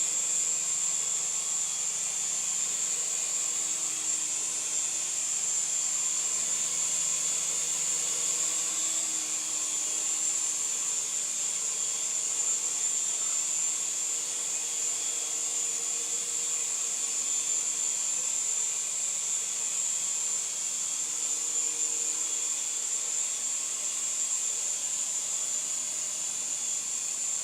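Syma S107G mini RC helicopter's small electric motors and rotors whirring in flight, a steady high-pitched whine with a fainter hum beneath it that shifts slightly in pitch.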